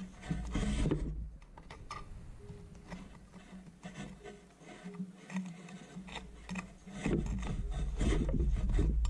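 A thick leather-gloved hand scraping and rummaging through ash and charcoal in a wood stove's firebox to free a fired clay crucible: scraping, rubbing and small clicks of shifting embers, growing louder and denser about seven seconds in.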